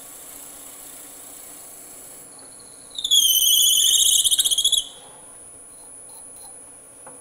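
Drill bit squealing as it bores into a dense kingwood pen blank spinning on a wood lathe: a loud, shrill, warbling screech of about two seconds, starting about three seconds in. The steady whine of the running lathe sits beneath it.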